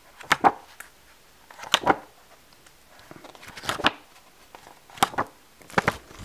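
Pages of a large illustration book being turned by hand, a quick papery swish about every one to two seconds, five in all.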